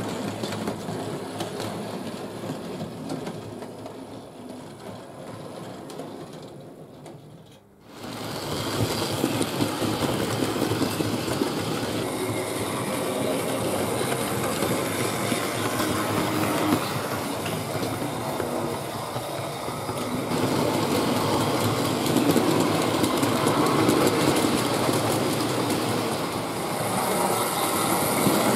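Hornby Dublo model locomotives running on loose-laid three-rail track: a steady whirring rattle with fast clicking of the wheels over the rail joints. The sound fades low about seven seconds in, then comes back louder and carries on steadily.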